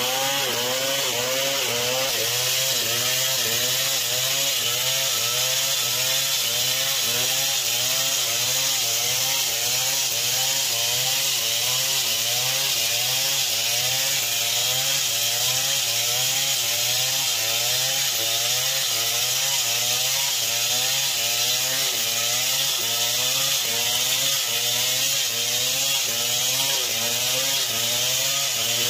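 A Stihl 070 two-stroke chainsaw running steadily under load as it cuts through palm wood. Its engine note wavers up and down about one and a half times a second as the cut goes on.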